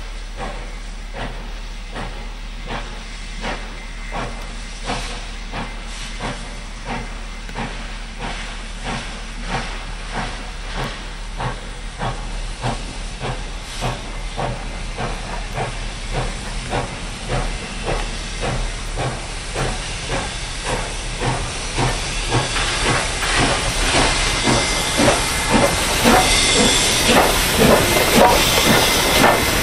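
Steam locomotive 3642, a NSWGR C36-class 4-6-0, working slowly: a steady beat of exhaust chuffs, about two to three a second, over a hiss of steam. It grows louder over the last third, with the steam hiss strongest near the end as the engine comes close.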